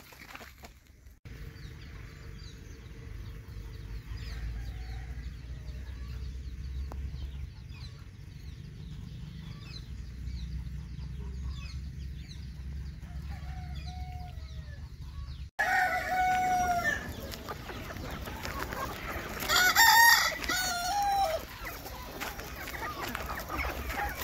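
Native free-range chickens. For most of the stretch there are faint high chick peeps over a low rumble. Then, after an abrupt change, a flock of adult chickens clucks, and a rooster crows loudly about 20 seconds in.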